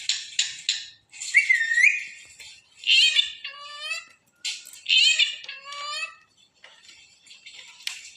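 A parrot calling: a raspy chatter, then a few whistled calls whose pitch bends up and down, followed by softer chatter.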